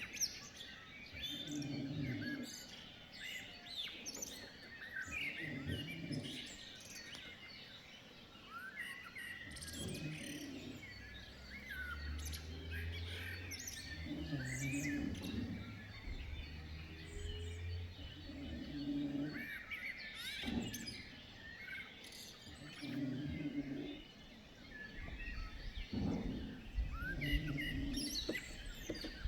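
Small birds chirping and singing throughout, over a sleeping person's snoring that comes back with each breath, about every four seconds. A low rumble runs through the middle.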